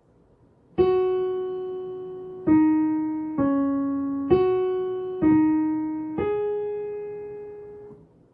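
Piano playing a slow, simple melody of six single notes, each struck and left to ring and fade, the last one held longest.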